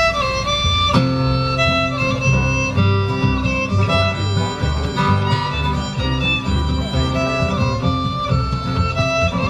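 Bluegrass fiddle tune with acoustic guitar backup: a short fiddle lead-in, then the band comes in about a second in and plays on steadily, the guitar keeping a rhythmic push under the fiddle melody.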